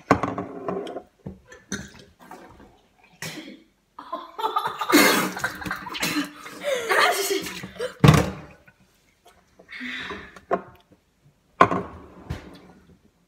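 Boys gagging, coughing and spluttering in irregular bursts, with groans of disgust, after chewing fish oil capsules. The loudest splutters come about five and eight seconds in.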